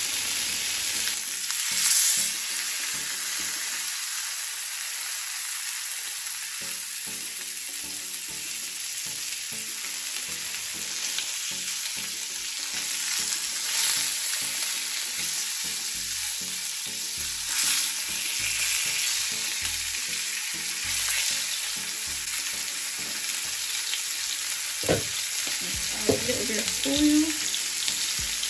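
Salmon pieces sizzling as they pan-fry in oil in a non-stick pan: a steady hiss with louder surges every few seconds as the pieces are turned over, and a few light knocks near the end.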